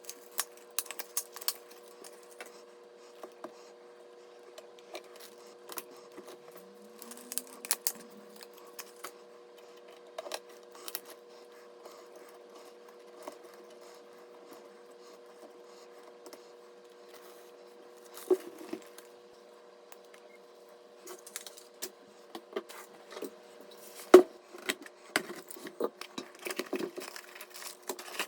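Hardware being handled by hand: scattered light clicks and small metallic clatter, with a sharper knock about two-thirds of the way through, over a faint steady hum.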